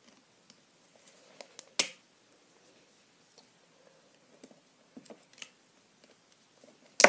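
Scattered clicks and small snaps of metal pliers working at a plastic mechanical pencil, bending a small piece to break it off. The sharpest clicks come about two seconds in and again at the very end.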